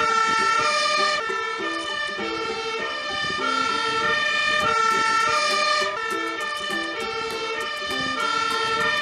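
Fire engine's multi-tone siren, its pitch stepping back and forth between notes in a repeating pattern.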